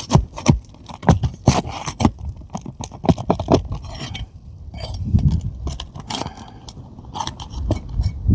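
An asphalt roof shingle is being worked loose and pulled out from under the shingles above it, with a run of irregular short scrapes and clicks.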